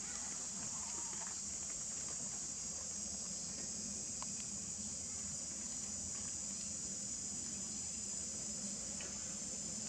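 A steady, high-pitched chorus of insects, trilling without a break.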